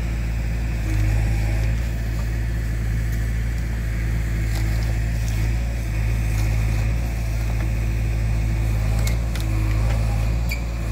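Diesel engines of a JCB backhoe loader and a tractor running steadily under load as the loader's bucket pushes a sugarcane trolley stuck in mud; a low engine drone that swells briefly about a second in and again near the end.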